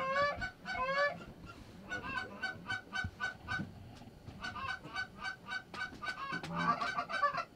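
Canada geese honking, a quick run of short honks, several a second.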